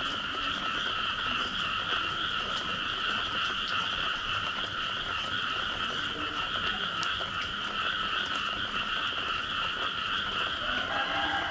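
Dense chorus of many frogs calling after rain, a steady unbroken mass of calls in two pitch bands, with a few faint drips.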